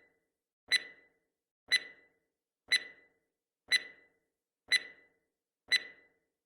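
Countdown timer tick sound effect: a sharp tick with a short ringing tone, once every second, six times.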